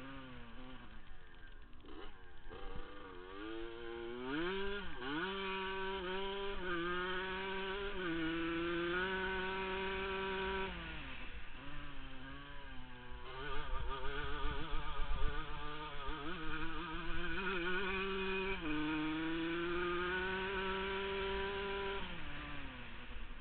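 1979 Yamaha YZ100's single-cylinder two-stroke engine revving up and holding steady under load, easing off about halfway through and again near the end. Wind buffets the onboard microphone throughout.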